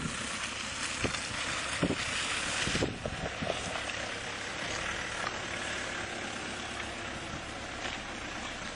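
Off-road SUV running on a dirt course: a steady rush of engine noise, louder for the first three seconds and then easing, with a few brief knocks.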